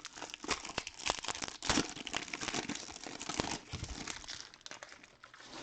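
Trading card pack wrappers being handled, crinkling with a rapid, uneven crackle that thins out near the end.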